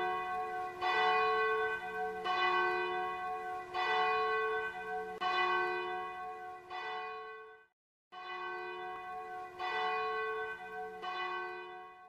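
A bell tolling in slow, evenly spaced strokes about every second and a half, each stroke ringing on and fading. The sound cuts off abruptly a little past halfway and starts again a moment later.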